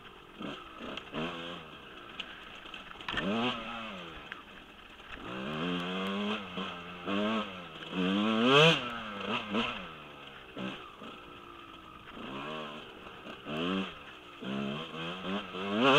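Husqvarna 125 dirt bike engine being ridden hard, revving up and dropping back again and again as the throttle is worked in short bursts, with the highest rev about halfway through and another near the end.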